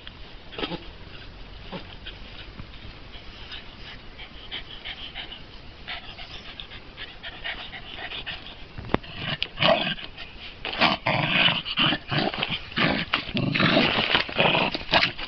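A West Highland white terrier growling as it bites and worries an inflatable beach ball. The noise turns louder and more rapid from about nine seconds in.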